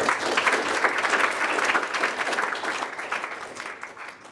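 Audience applauding at the end of a talk, a dense patter of many hands clapping that dies away and fades out near the end.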